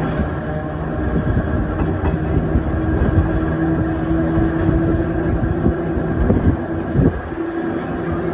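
A vintage Perley Thomas streetcar running along its track, heard from on board: a low rumble of wheels on rail with a few knocks, and a steady motor whine that comes in a couple of seconds in.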